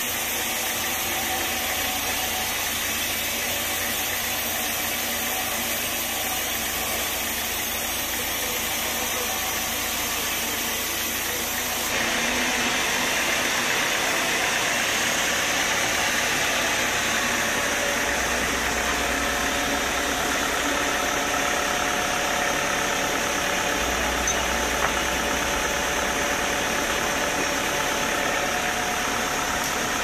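Band sawmill running steadily, its blade cutting through a young teak log over the drone of the mill's engine. The sound changes abruptly about twelve seconds in, becoming a little louder and brighter.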